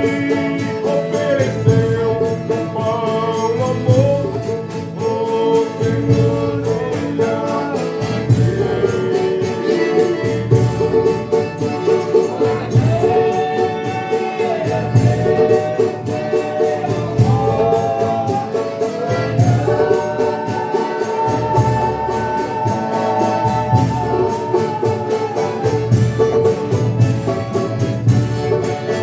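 Folia de Reis ensemble singing an agradecimento, the sung thanksgiving for a meal. Several voices sing together in long held lines over a steady drum beat and tambourine jingles.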